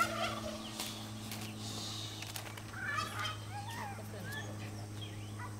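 Poultry calling: a scatter of short rising and falling calls, with a quick run of rapid notes about three seconds in, over a steady low hum.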